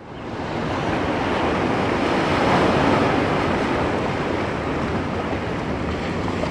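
Ocean surf washing onto a sandy beach, fading in from silence and swelling as a wave breaks about two and a half seconds in.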